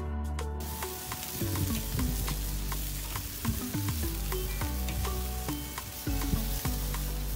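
Chicken pieces sizzling on the hot grate of a charcoal kettle grill, starting about half a second in, over background music.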